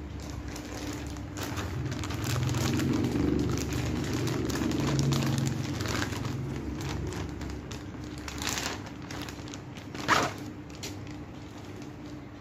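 Clear plastic packaging crinkling and rustling as it is handled and a bag is pulled out of it. There is one sharper, louder crackle about ten seconds in, over a low steady hum.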